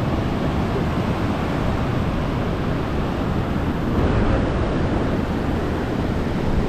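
Ocean surf washing onto the beach in a steady wash, with wind rumbling on the microphone.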